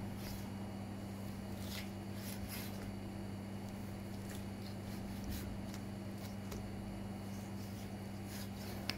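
A knife slicing raw meat on a plastic cutting board: faint, brief cutting strokes over a steady low hum, with a sharp click near the end.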